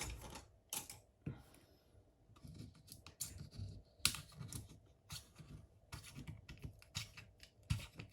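Faint, irregular small clicks and scrapes of a tool prying a glued battery loose from a phone.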